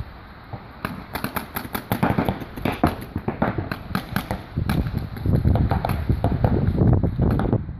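Paintball markers firing in rapid, irregular volleys of sharp pops, thickening from about a second in. From about five seconds in a loud low rumble joins them.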